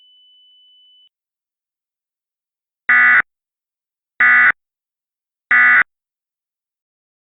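Three short, buzzy electronic data bursts about a second and a quarter apart: the Emergency Alert System (SAME) end-of-message code that closes an alert. Before them, a faint steady high tone stops about a second in.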